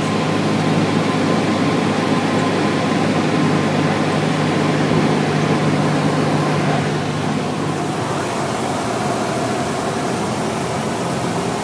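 Steady drone of a high-wing light plane's engine and propeller, with wind noise, heard from inside the cabin. The drone drops a little in level and its low hum changes about seven seconds in.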